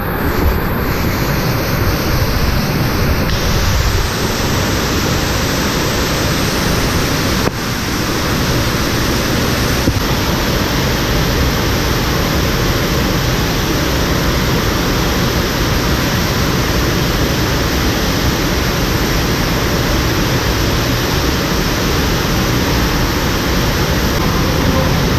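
Loud, steady rush of floodwater falling and spraying down a vertical cave shaft, a pitch in spate.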